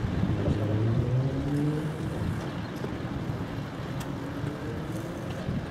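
Sormovskiy river-sea cargo ship's diesel engine droning low and steady as the ship comes in slowly, over wind noise; the hum weakens after about two seconds.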